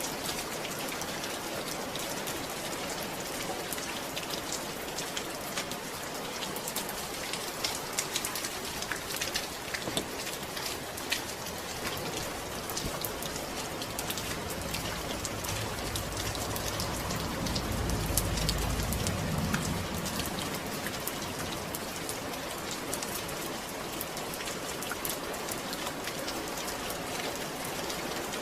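Steady rain falling, with many separate drop hits heard in it. A low rumble swells and fades about two-thirds of the way through.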